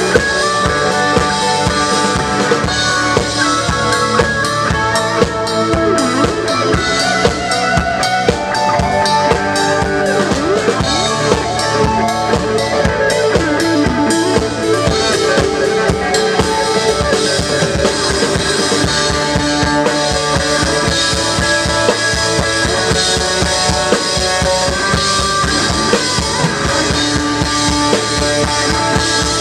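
A live band playing: a drum kit beats steadily throughout, with bass drum, snare and cymbals, under sustained electric guitar notes that bend here and there.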